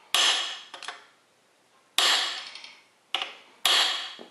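Hammer knocking a steel drift against an oil-pump locating dowel pin in a small-block Chevy rear main bearing cap, to nudge the pin over and close up the pin spacing. Three sharp metallic blows, each ringing briefly, with a lighter tap just before the last.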